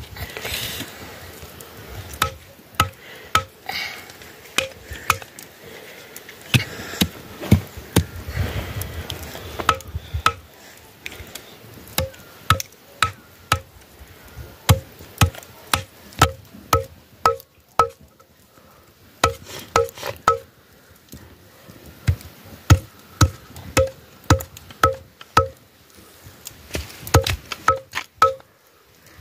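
Raw meat being chopped on a wooden log block with a large curved blade: sharp chops, often in quick runs of three or four with short pauses between, each blow giving a short ringing note.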